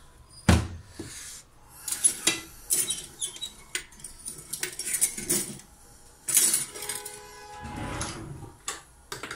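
Clinks and knocks of kitchen containers and utensils being handled on a countertop as whole cloves are dropped into a large glass jar of cornelian cherry liqueur, with a brief ringing note about seven seconds in.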